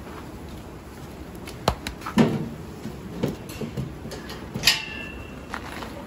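Irregular knocks and clunks of a heavy goat being loaded onto an electronic platform weighing scale, the loudest about two seconds in, with a short high tone just before five seconds.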